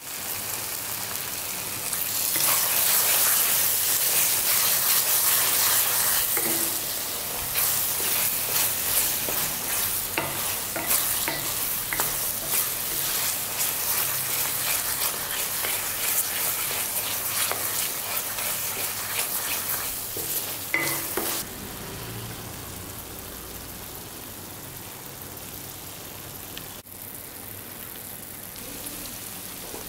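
Thick tomato-onion thokku sizzling in oil in a metal kadai while a spatula stirs and scrapes it against the pan. The sizzle is loudest a couple of seconds in, stirring scrapes and taps run through the middle, and it settles to a quieter sizzle after about twenty seconds.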